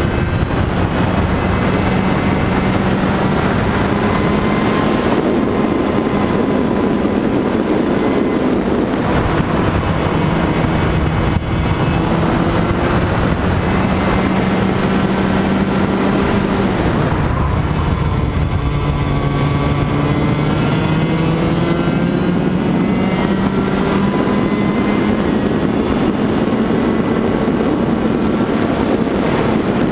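Two-stroke racing kart engine at speed, heard from onboard, its pitch climbing through the straights and falling about seventeen seconds in as the kart slows for a corner, then climbing again.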